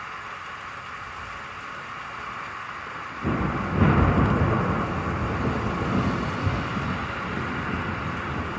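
Steady hiss of rain, then about three seconds in a thunderclap breaks in and rumbles on, loudest within the first second and slowly fading.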